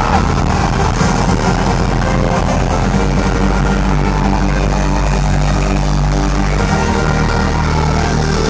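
Loud electronic dance music played over a concert sound system, with a heavy, steady bass.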